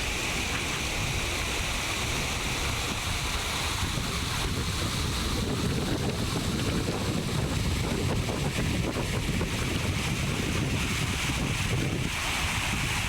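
Steady rushing noise of a swollen river's floodwater running high after rain in its catchment, continuous and even throughout.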